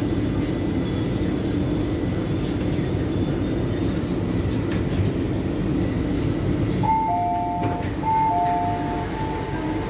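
Steady rumble of an MTR Q-Train running into a station, heard from inside the car. About seven seconds in, a two-tone door chime starts and repeats as the doors open.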